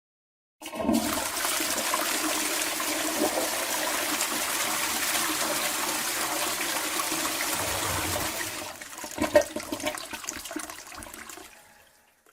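A toilet flushing: a sudden rush of water starts about half a second in and runs steadily for about eight seconds, then turns to irregular gurgling as the bowl drains, fading out near the end.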